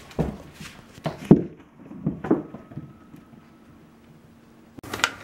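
Several dull thumps and knocks from a handheld camera being carried across a room, then a quieter stretch with a faint steady hum; near the end a sudden clatter begins.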